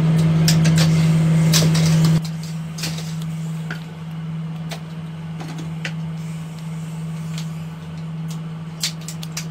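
A steady low hum that drops in level about two seconds in, with scattered light metallic clicks and clinks as metal eyeglass frames and pliers are handled during hand assembly.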